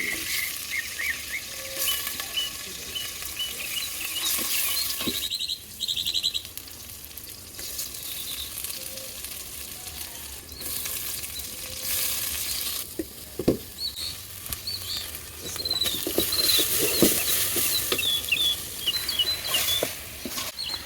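Food sizzling in hot oil in a pan, a steady frying hiss with a few knocks, while birds chirp in the background.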